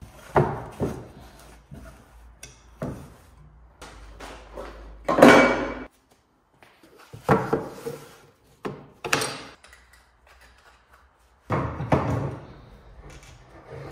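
A cut-out sheet-metal car-body panel handled and wiped with a rag on a metal workbench: a string of irregular knocks, clanks and scrapes, the loudest about five seconds in.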